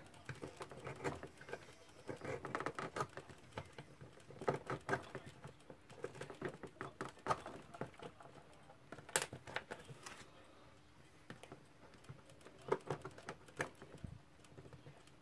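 Swiss Army knife blade whittling a wooden cocktail stick to a fine point: faint, irregular scraping and clicking strokes in small clusters, with one sharper click about nine seconds in.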